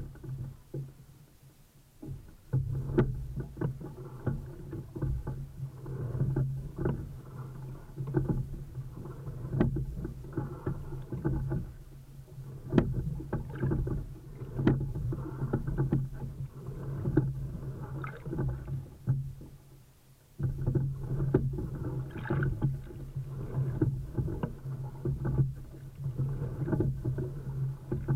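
Single racing scull under way, recorded from its deck: repeated sharp knocks of the oars and rigging with each stroke over water running along the hull, under a steady low hum. The sound drops away briefly about two seconds in and again around twenty seconds.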